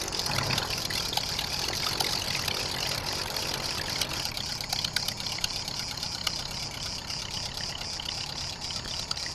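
Engine and propeller of a Preceptor Ultra Pup ultralight running steadily, heard as an even, noisy rush with a light crackle.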